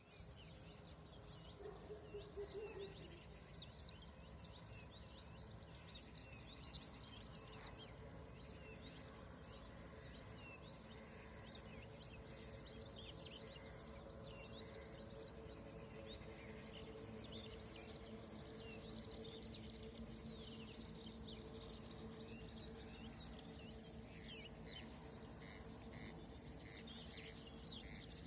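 Many small birds chirping and singing in a dawn chorus, with a faint steady low hum underneath.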